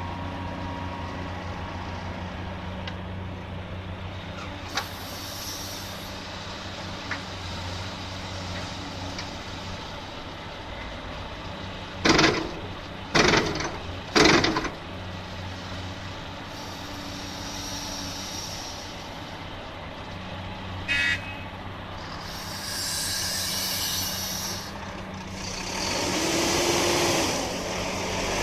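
Cat 345D L excavator's diesel engine running steadily alongside a loaded truck, with three loud short blasts a little before halfway, a brief beep later, and long hisses near the end.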